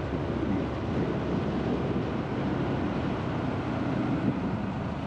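Honda Super Cub's small single-cylinder engine running steadily while riding at an even pace, with road and wind noise.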